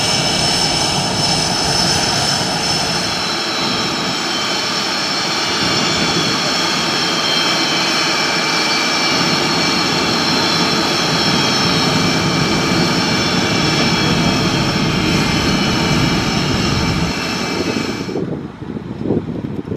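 Aircraft turbine engines running at idle on the ramp during a hot-ramp stop: a steady, loud whine with several high tones, a few of them slowly falling. The whine cuts off suddenly near the end.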